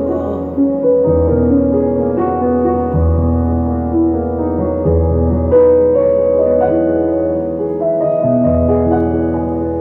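Solo piano playing slow, held chords, with a new low bass note struck every second or two.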